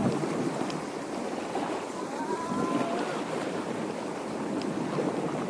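Sea waves washing against the rocky shore, with wind, as a steady rushing surge. A faint thin whistling tone glides briefly about two to three seconds in.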